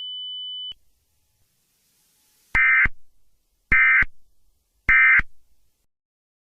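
A steady high-pitched alert tone cuts off under a second in. After a pause come three short bursts of warbling digital data tones, about a second apart: the Emergency Alert System SAME end-of-message (EOM) code, sent three times to close the alert.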